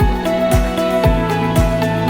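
Background music with sustained held chords over a steady low beat, about two beats a second.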